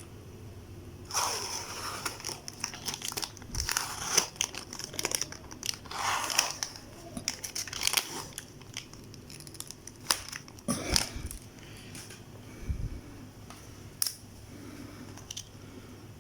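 Plastic food packaging being handled: bouts of crinkling, crumpling and tearing in irregular bursts, with a couple of dull thumps in between.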